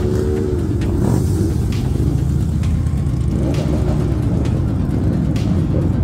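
Motorcycle engines running together as a steady low rumble, with music underneath.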